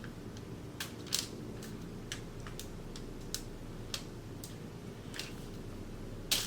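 A person chewing a crispy croissant breakfast sandwich close to the microphone: scattered, irregular sharp crunches and mouth clicks over a low steady hum.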